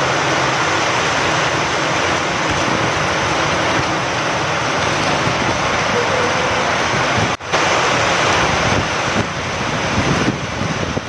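Steady heavy rain with wind, an even rushing hiss that cuts out for an instant about seven seconds in, then comes back more uneven.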